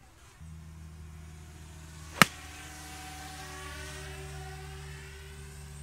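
Camera drone's propellers humming steadily while it hovers, with one sharp crack about two seconds in: a Ping i20 8-iron striking a golf ball off the tee.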